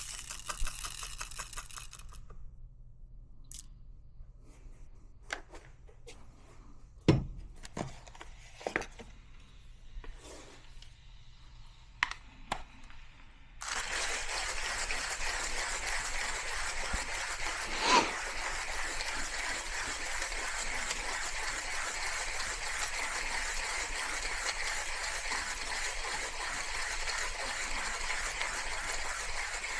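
A 1Zpresso K-Ultra hand coffee grinder crunching beans for the first couple of seconds, then a run of light clicks and knocks. About halfway through, water starts running steadily and keeps on.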